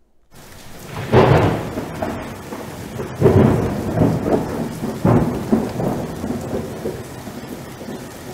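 Thunderstorm: steady rain with several rolls of thunder, the first about a second in and more through the middle.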